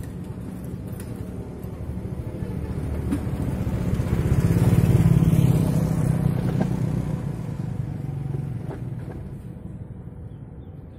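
Motorcycle riding past close by: its engine grows louder to a peak about five seconds in, then fades away.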